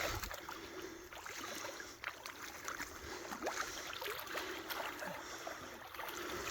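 Shallow water sloshing and trickling, broken by many small, irregular splashes.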